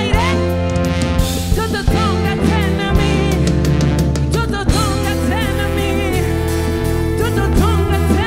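Live afrobeat band playing a song: drum kit and bass lay down the groove under bending melodic lines.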